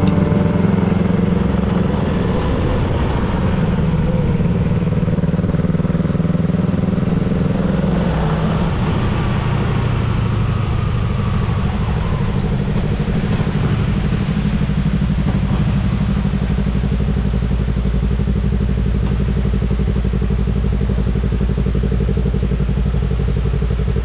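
Motorcycle engine running steadily while under way, its pitch shifting about eight to ten seconds in.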